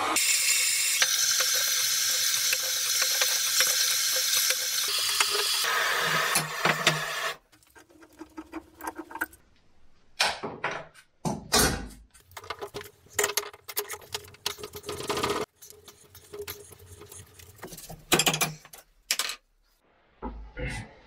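A loud steady hiss cuts off suddenly about seven seconds in. Then come scattered metallic knocks and clinks as turbocharger parts are handled and set down on a workbench.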